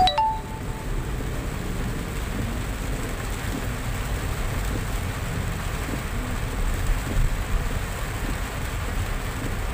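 Heavy rain on a moving car, heard inside the cabin: a steady hiss of rain on the roof and windscreen over low road and tyre noise. A short click comes right at the start.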